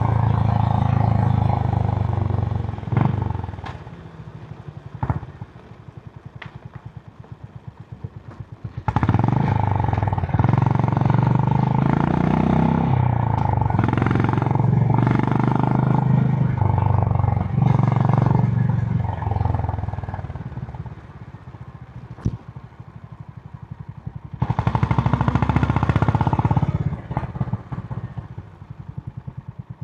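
Honda H'ness CB350's single-cylinder engine through its stock exhaust, pulling hard in several stretches with its pitch stepping and falling as the throttle is opened and shut. In between, about 3 s in, about 20 s in and near the end, it drops back to a slow, even thump on closed throttle.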